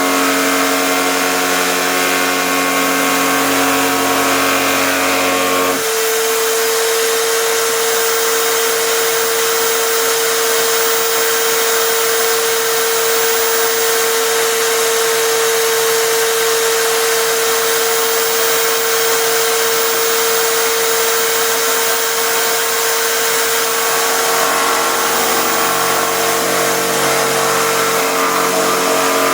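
Electric drill driving a router bit in a home-made router table, running continuously while routing plywood. Its tone changes about six seconds in, down to one strong steady pitch over a hiss, and changes back near the end.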